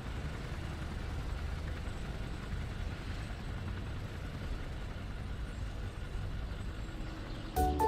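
Cartoon vehicle engine sound effect: a steady low engine rumble as the vehicles drive. A short, plucky music cue with sharp clicks starts just at the end.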